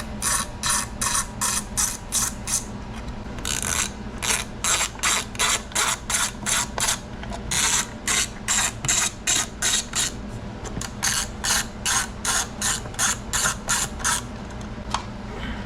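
Hand ratchet turning a T10 Torx bit to back out trim screws. It clicks in quick runs of about three to four clicks a second, with brief pauses between runs, and a single click near the end.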